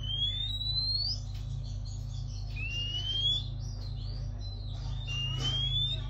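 Oriental magpie-robin giving a clear rising whistle, repeated three times about two and a half seconds apart, over a steady low hum.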